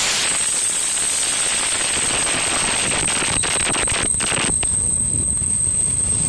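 Container freight wagons of a passing freight train rolling by close at speed: a loud, steady rush of steel wheels on rail with a thin, steady high whine, and a few knocks about halfway through as wheels cross rail joints.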